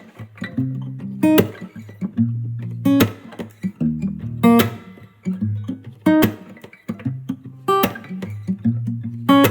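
Background music: an acoustic guitar strumming the song's instrumental opening, with a sharp percussive hit about every second and a half.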